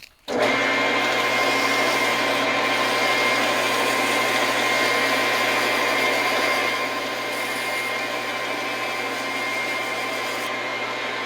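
Lathe motor running steadily while 220-grit sandpaper is held against the spinning steel bar handle, with a steady hum and hiss of sanding; it starts about a third of a second in and gets a little quieter about two-thirds through.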